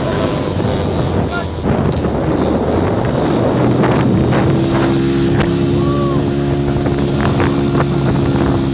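A vehicle engine running steadily, with wind buffeting the microphone; the engine note gets stronger about three seconds in.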